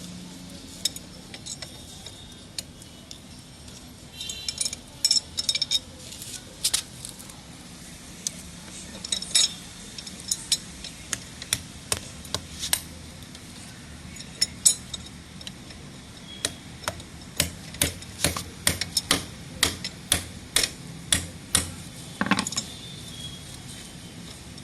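Repeated sharp taps and clicks of hand tools working on a stuck PVC pipe joint. They come in scattered groups at first, then in a quick, fairly regular run of strikes about two to three a second in the last third.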